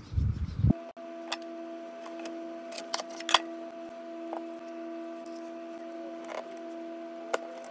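A steady low hum that starts abruptly just under a second in, with scattered light clicks and taps over it, the loudest about three seconds in.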